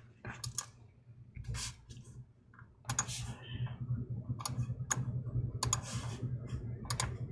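Light clicks and taps of a plastic laptop being handled and turned over on a tabletop, a finger tapping on its underside. A low steady hum comes in about three seconds in.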